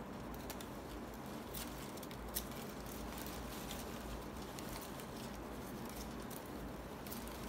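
Strips of young palm leaf rustling and ticking softly as hands thread them through a braided weave, with one sharper click about two and a half seconds in, over a steady low hum.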